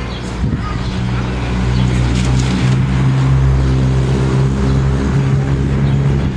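An engine running steadily with a low hum. The hum swells about a second in and cuts off suddenly at the end.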